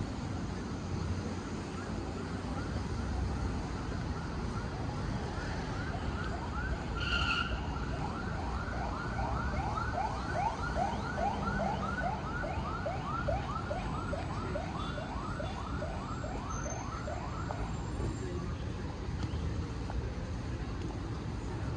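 Emergency vehicle siren in fast yelp mode, repeating quick rising sweeps about three to four times a second. It grows louder and then fades out a few seconds before the end, over steady road traffic rumble.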